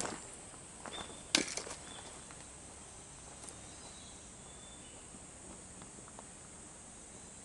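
Two footsteps near the start, about a second and a half apart, then a steady faint outdoor hiss.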